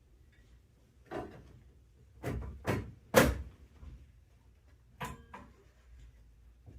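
Several sharp wooden knocks and clatters, the loudest about three seconds in, as boards of a tatami subfloor are worked loose and lifted.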